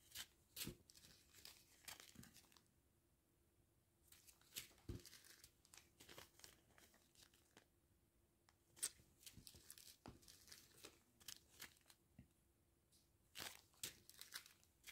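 Faint crinkling and rustling of small zip-lock plastic bags of diamond-painting drills being handled, in short scattered crackles with brief pauses between them.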